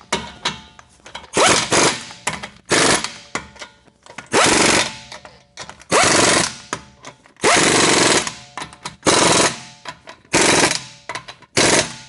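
Pneumatic impact wrench hammering in short rattling bursts, about eight of them roughly a second and a half apart, each trailing off with a hiss of air, as the lug nuts of a Honda Accord's rear wheel are tightened after the brake job.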